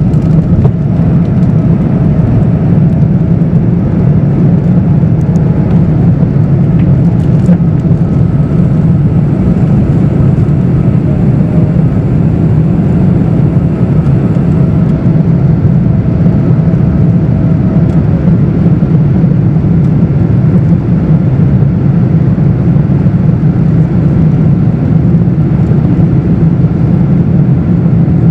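Cabin noise inside a Boeing 777-200ER with Rolls-Royce Trent 895 engines: a steady, loud rush of engine and airflow noise, heaviest in the deep low end, with faint steady tones above it.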